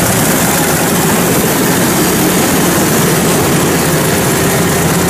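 Kubota DC105X combine harvester running at work while cutting rice: a loud, steady diesel engine drone with a low hum, under an even mechanical rush from the header and threshing machinery, heard from close on board.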